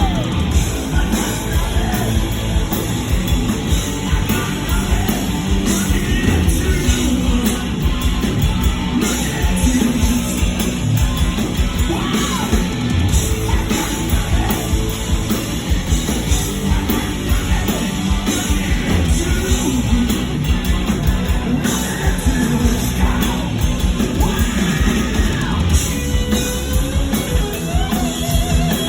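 Rock band playing live at full volume, with loud, shouted vocals over the band and a steady beat.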